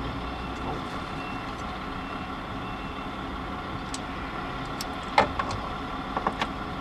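A steady background hum, with a few light clicks and taps in the second half as a Torx screwdriver is handled under the glove box.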